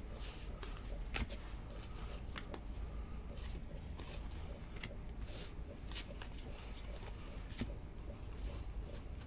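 Trading cards being slid and flicked off a stack one by one in the hands: irregular soft snaps and rustles of card stock, over a low steady hum.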